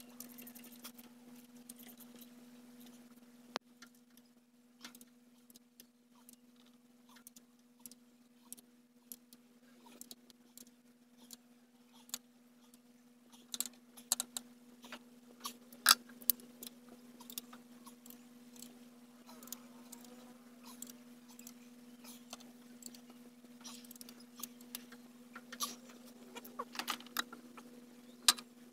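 Wrench and metal engine parts clinking as injectors are refitted into an Isuzu 6WG1 diesel's cylinder head: scattered sharp clicks and taps, a few of them louder, over a steady hum.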